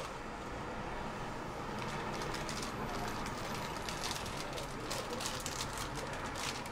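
Steady background noise with faint voices and a few light clicks near the middle.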